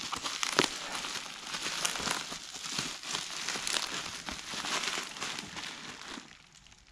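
Plastic bubble wrap crinkling and crackling as it is pulled off a coilover's top mount by hand. The dense crackle fades about six seconds in.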